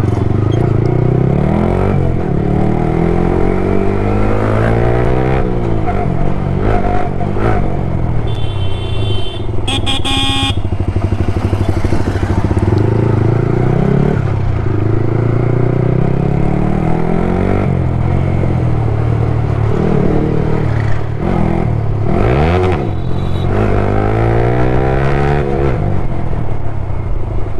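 Yamaha R15 V3's single-cylinder engine and exhaust, heard from the rider's seat, revving up and easing off several times as the bike pulls away and shifts up through the gears.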